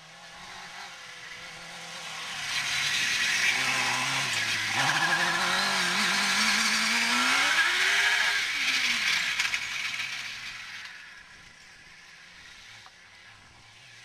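Mini sand rail buggy powered by a Suzuki GSX-R 750 inline-four motorcycle engine, revving hard as it drives past. It grows loud a couple of seconds in, the engine note climbs and then drops, and it fades away about three seconds before the end.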